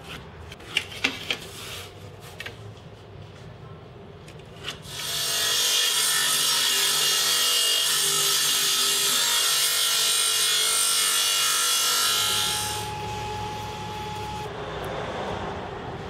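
Table saw blade cutting through plywood on a crosscut sled: loud, even sawing for about seven seconds, starting about five seconds in, after a few sharp clicks and taps. The cut ends with a brief steady tone and a lower running sound.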